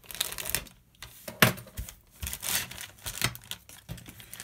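Clear plastic bag crinkling and rustling as a plastic model-kit sprue is handled and slid out of it, with irregular clicks of the plastic, the sharpest about a second and a half in.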